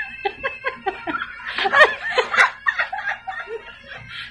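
Women laughing in short repeated bursts, loudest about two seconds in.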